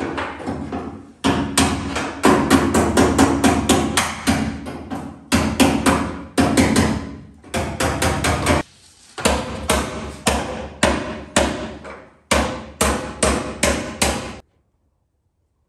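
Hand hammer striking the sheet steel of a 1986 Ford F-150 cab's lower corner and floor. The blows are fast and even, about three to four a second, in runs broken by short pauses, and they stop about a second before the end.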